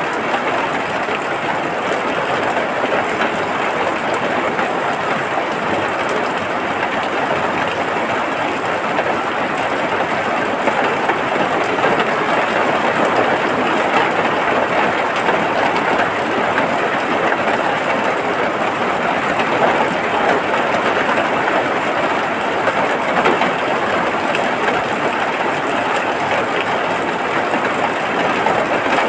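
Steady heavy rain, a dense even hiss of many fine drops with no let-up.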